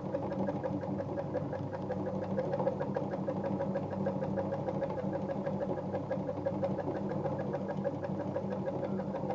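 Jones sewing machine driven by its electric motor, sewing a straight stitch at its longest stitch length: a steady motor hum with the rapid, even ticking of the needle mechanism.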